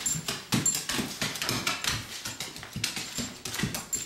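Small dog rolling over on a hardwood floor: a rapid, irregular run of claw clicks, scrabbling and light knocks as it twists on the boards.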